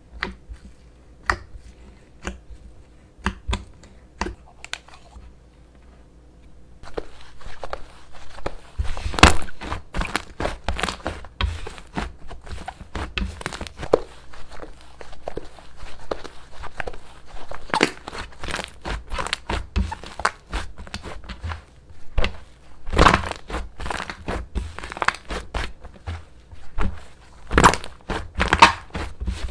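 Slime being squished and pressed, making sticky popping and crackling sounds: a few scattered pops at first, then dense, continuous crackling from about seven seconds in.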